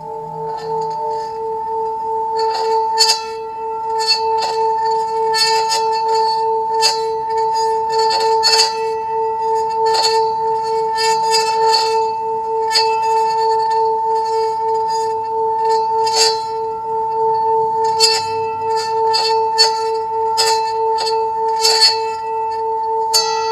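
Singing bowl sung by circling a wooden stick around its rim: a steady, slowly pulsing hum with a higher overtone, broken by many short clicks. Near the end the bowl is struck and rings brighter.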